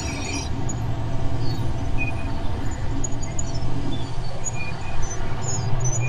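Experimental electronic soundtrack: a dense, noisy low rumble holding steady, sprinkled with short high squeaks and chirps.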